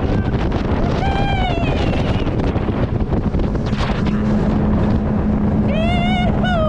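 A small dinghy's outboard motor running under way, with heavy wind buffeting the microphone and a steady hum joining in about halfway through. Two short, high calls that bend in pitch cut through, one early and one near the end.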